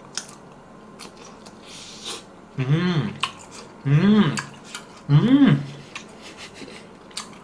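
A man chewing a mouthful of hot chicken-breast frankfurter: faint wet mouth clicks, then three short voiced huffs about a second apart, each rising and falling in pitch, as he copes with food that is too hot.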